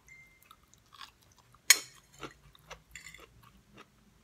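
A person eating crab: wet chewing and lip-smacking with scattered small clicks and crunches, and one sharp crack about 1.7 seconds in.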